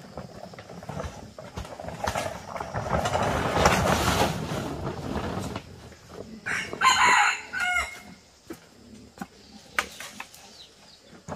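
A plastic tarp rustling loudly as it is dragged off a rack of drying corn, then a rooster crowing once, a little past the middle. A few faint knocks follow.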